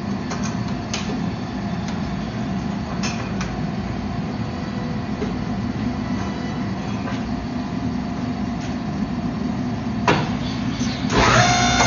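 Steady mechanical roar of a blacksmith shop's gas forge and hydraulic forging press running, with a few light clanks. About ten seconds in the hot billet knocks onto the press die. A second later the hydraulic press goes under load, squeezing the billet, and the sound grows louder with a steady whine.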